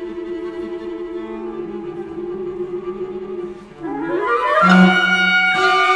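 Classical music on bowed strings holding low sustained notes, then a quick rising run about four seconds in that leads into a louder held chord.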